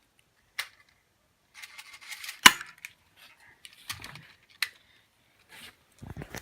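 A few scattered sharp clicks with light rustling handling noise, and one loud sharp snap about two and a half seconds in.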